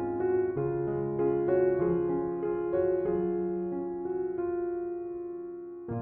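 Slow, gentle piano music: notes changing about every half second over sustained chords. A long held note fades away near the end before the next phrase begins.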